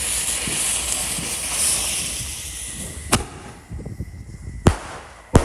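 Lit fuses of a row of consumer firework tubes hissing and sputtering, the hiss fading away, then sharp firework bangs as the tubes fire: one about three seconds in and two more near the end.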